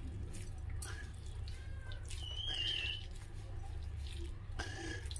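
Steady low hum with a short, high warbling chirp about halfway through.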